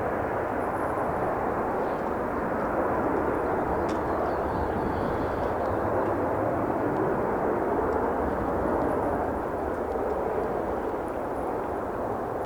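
Steady rushing roar of an aircraft's engines, swelling a little in the middle and easing near the end, mixed with strong wind buffeting the microphone.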